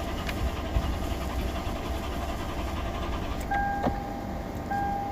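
Lexus LX570's V8 being cranked over by the starter without catching, a crank-but-no-start fault that the B2799 code traces to the engine immobilizer. A steady electronic warning chime beeps twice in the last second and a half.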